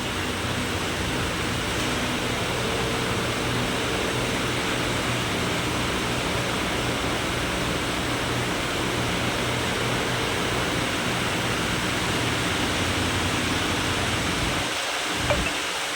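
Industrial heating furnace running with a steady rushing noise over a low hum. About fifteen seconds in, the low hum drops away and there is a brief click.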